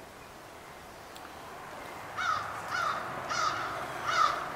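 A bird calling four times in quick succession, short harsh calls starting about two seconds in, over a quiet outdoor background.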